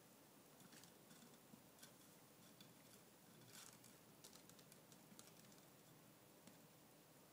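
Near silence with faint scattered little clicks and a brief soft rustle about three and a half seconds in: a kitten's claws catching on the canvas of a laundry hamper as it climbs the side.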